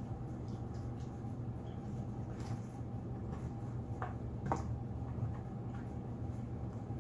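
Eating sounds over a steady low hum: a few short clicks and smacks, about two and a half, four and four and a half seconds in.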